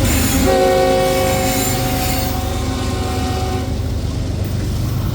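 Train horn sounding a chord, held for about three seconds starting about half a second in, over the loud steady noise of a train passing close by.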